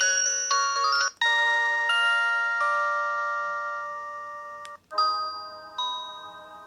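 LG U8120 mobile phone ringtones played in turn: a quick melody in chords breaks off about a second in, a new tone follows with a held ringing chord that slowly fades, and a third ringtone starts about five seconds in.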